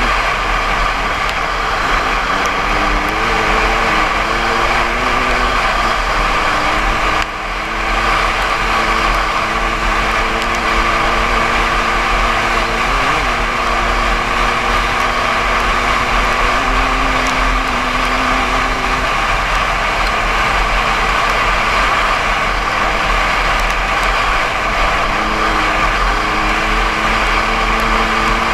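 Dirt bike engine under way at speed, its pitch drifting up and down with the throttle, with a short drop in level about seven seconds in. A heavy rush of wind on the helmet-mounted camera runs under it.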